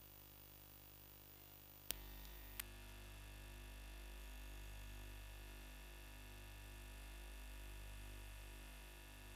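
Near silence filled by a low electrical mains hum and faint hiss. Two sharp clicks come about two seconds in, after which the hum is steadier and a little louder.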